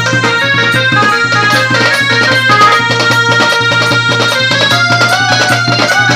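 Indian banjo band playing: a bright melody of many held, stepping notes over a steady low drone, with fast regular percussion hits; near the end the melody starts to waver and bend in pitch.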